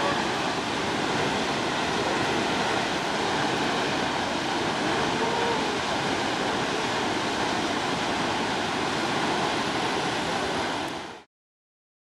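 Kegon Falls, a nearly 100 m waterfall, plunging into its gorge: a steady, even rush of falling water that fades out quickly near the end.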